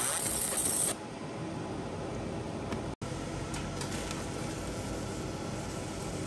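Laser engraver at work on a tumbler: a high hiss with machine hum stops abruptly about a second in. After that only the steady rush of a fume-extractor fan remains, with a few faint ticks. The sound drops out for an instant about three seconds in.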